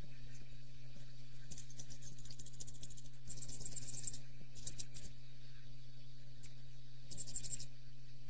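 A restored hand-operated hair clipper being worked by squeezing its handles: the steel blades click rapidly in four short runs, with a few single clicks between.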